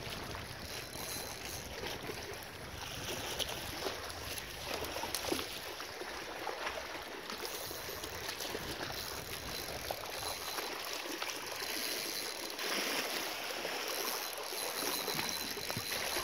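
Sea water washing and trickling among shoreline rocks, a steady hiss with a few small clicks.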